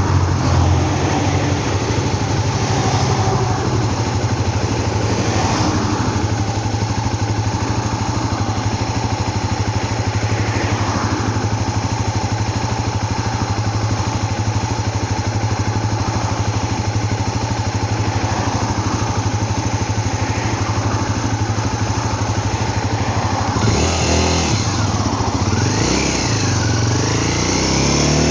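A vehicle engine running steadily under way, with road and wind noise. About 24 seconds in, the engine note starts rising and falling repeatedly as the revs change.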